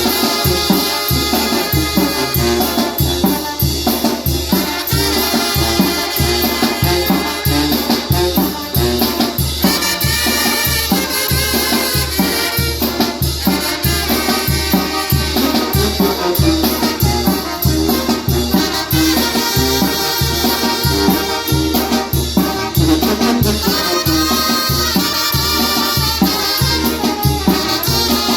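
Latin salsa-style music led by a trumpet playing sustained melodic lines over a steady, even bass-and-percussion beat.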